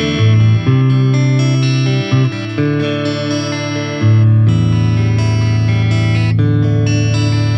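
TERRIS TST-39 electric guitar playing sustained chords that change every second or two.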